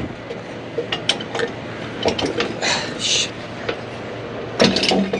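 Metal clicks and clanks from a truck trailer dolly's crank handle and fittings being worked by hand, with two short hisses of air a little before the middle and a heavier clank near the end.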